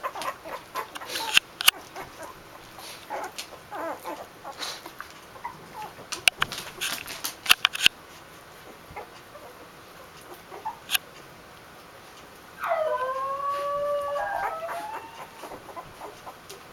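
Two-week-old Basenji puppies squeaking and whimpering, with scattered clicks and short high squeals. Near the end there is one louder drawn-out cry of about two seconds that dips in pitch and rises again.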